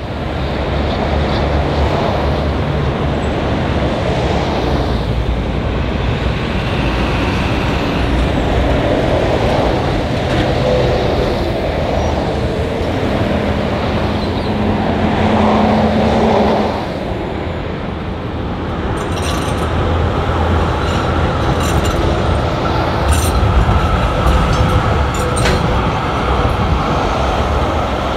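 Melbourne B2-class articulated electric tram running toward the listener on its rails, its motors and steel wheels sounding over a steady traffic rumble. In the second half there is a series of sharp clicks as it draws near.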